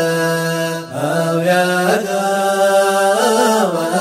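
Unaccompanied male voice singing a Dhofari wiyad camel-caravan chant, holding long drawn-out notes that slide slowly up and down, with a short break about a second in.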